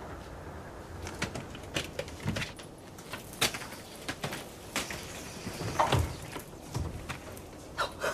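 Scattered knocks, clicks and shuffles of people moving about a room, the loudest about six seconds in.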